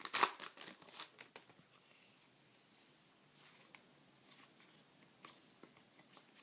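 Foil trading-card pack wrapper crinkling sharply at the start, then faint, scattered ticks of cards being handled.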